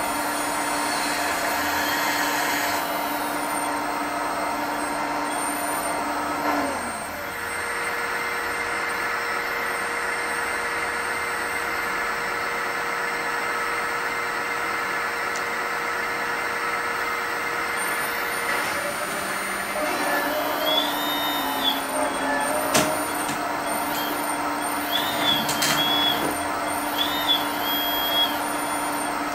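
Hydraulic pump of a LESU HMK 490 radio-controlled excavator whining steadily as the scrap grapple is worked, its pitch shifting about seven seconds in and again near twenty seconds. In the last third come a few sharp clanks as the grapple closes on the scrap.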